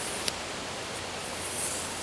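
Campfire burning with a steady hiss and one sharp pop about a quarter second in.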